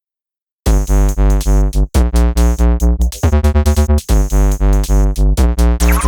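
Electronic music with a heavy bass beat and synthesizer chords, starting about two-thirds of a second in, with short breaks near 2 and 4 seconds and a rising sweep near the end.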